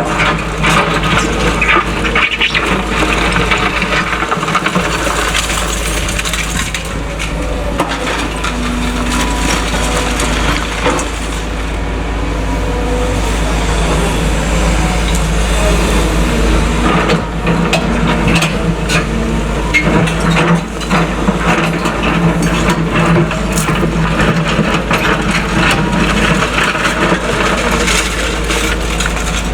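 Caterpillar excavators' diesel engines running steadily while their buckets crush and shift demolition rubble, with constant clattering and cracking of debris.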